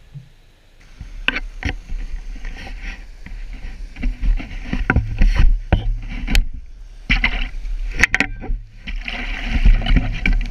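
River water sloshing and splashing around a landing net pushed through the current, with repeated sharp knocks and clunks from the net and gear being handled.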